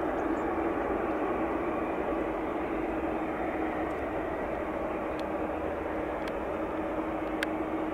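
Jet engines of a Boeing 787 Dreamliner running with a steady rush and an even low hum, easing off slightly; a few faint clicks in the last few seconds.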